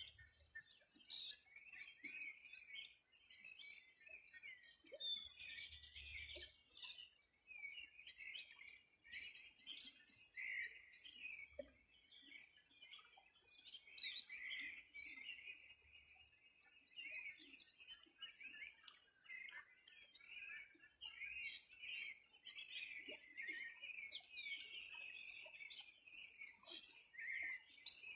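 A faint chorus of several wild birds chirping and singing at once: a dense, unbroken stream of short high notes.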